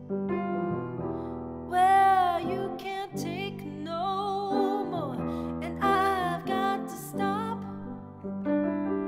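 A woman singing, accompanying herself on a grand piano: sustained piano chords under several sung phrases, with held notes that waver in vibrato.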